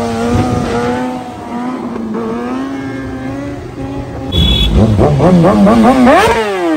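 Motorcycle engine holding a steady note for several seconds. It is then revved up and down rapidly, climbing in pitch, and its pitch falls away near the end.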